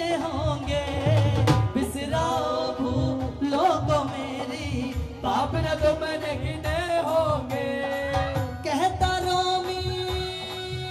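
A man sings a Hindi devotional bhajan live through a microphone and PA, over a drum beat. About nine seconds in, his singing gives way to a held instrumental melody.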